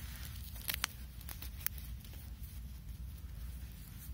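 Handling noise as small firecrackers are pressed into a plush toy: soft rustling of fur and fabric under the fingers, with a few sharp clicks just under a second in and again at about a second and a half. A steady low rumble runs underneath.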